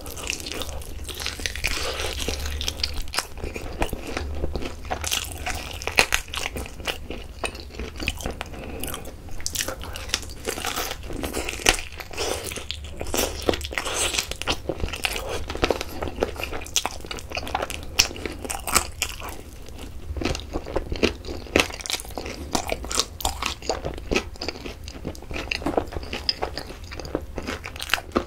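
Close-miked eating of a yangnyeom-sauced fried chicken drumstick: repeated crunchy bites and chewing, with clicking, crackly mouth sounds.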